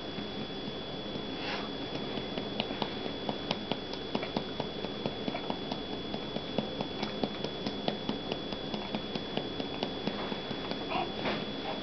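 Hand patting a baby's back to bring up a burp: soft, regular pats, about two to three a second.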